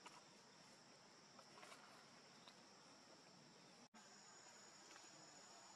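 Faint, steady high-pitched drone of forest insects, with a few soft clicks. The sound breaks off for an instant about two-thirds of the way through.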